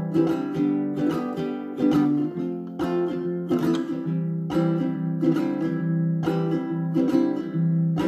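Baritone ukulele strumming chords in a steady rhythm, an instrumental passage with no singing.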